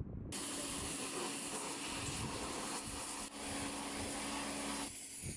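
Pressure washer spraying: a steady hiss of the water jet over a steady hum from the machine's pump, starting abruptly just after the start and easing about five seconds in.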